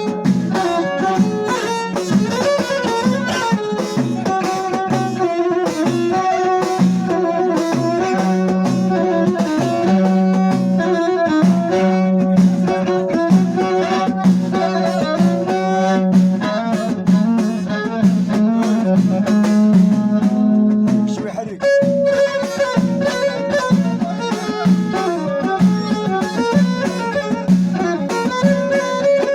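Amazigh folk music, an instrumental passage: a bowed string instrument carries the melody over hand drums and percussion keeping a steady beat. The music briefly drops away about 21 seconds in, then picks up again.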